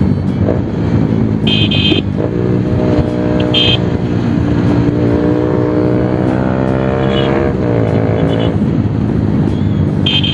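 Bajaj Pulsar 220's single-cylinder engine through an aftermarket SC Project exhaust, ridden on the road: the exhaust note climbs steadily for several seconds, then drops sharply about seven and a half seconds in as the throttle closes. Two short high tones sound about two and four seconds in.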